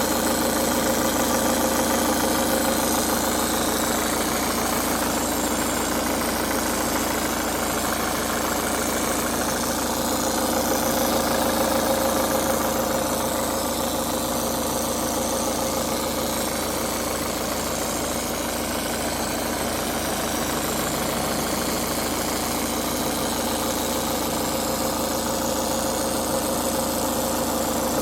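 Ford Focus Mk3 engine idling while cold, making an abnormal noise. The running sound is steady and even, with a constant hum.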